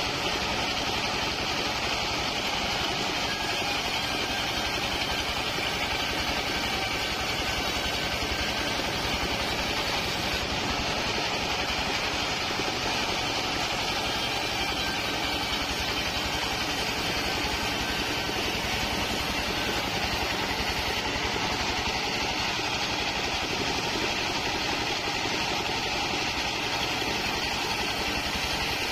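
Portable bandsaw sawmill running steadily under power while a waru (sea hibiscus) board is pushed through the band blade and ripped lengthwise: an even machine drone with no change in pace.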